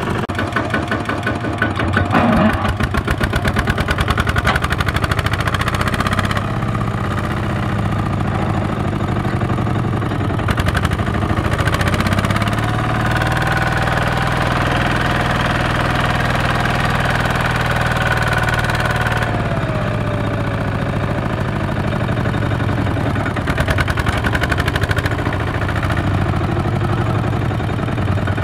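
Single-cylinder diesel engine of a two-wheel walking tractor chugging steadily under load as it drags a trailer of rice sacks through deep paddy mud.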